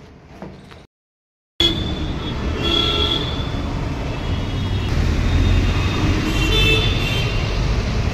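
Busy road traffic: vehicle engines and tyres with a low rumble, starting suddenly after a second of silence. Car horns toot briefly twice, once about three seconds in and again near the end.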